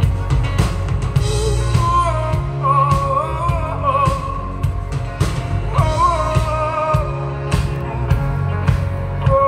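Live rock band playing a song: a singer over drums, bass and electric guitar, with a steady drum beat.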